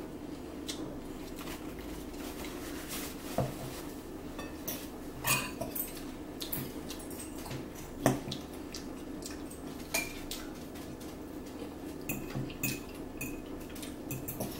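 Metal forks clinking and scraping against plates and a bowl while eating salad, in scattered separate clicks, over a steady low hum.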